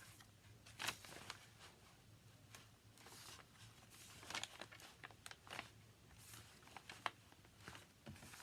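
Faint paper rustling and scattered light ticks from hand-sewing a journal signature, with unwaxed hemp cord drawn through the paper.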